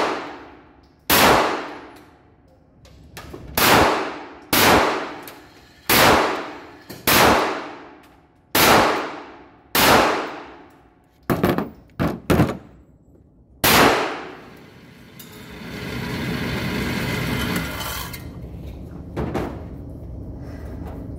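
A string of about a dozen gunshots, roughly one a second with three quick shots near the middle, each ringing out in a long echo. A few seconds of steady rushing noise follow.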